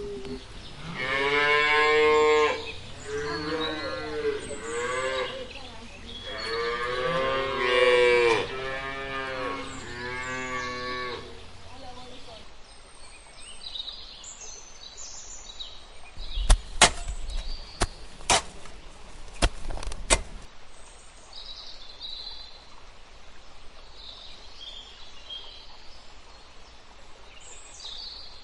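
Cattle mooing, a run of long calls over roughly the first eleven seconds. After that come faint bird chirps, and about two-thirds of the way in a cluster of several sharp knocks, the loudest sounds here.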